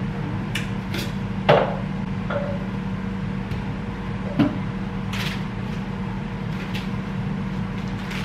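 Kitchen handling noises: scattered knocks and clicks of items being moved, with a louder knock about one and a half seconds in and another around four and a half seconds, over a steady low hum.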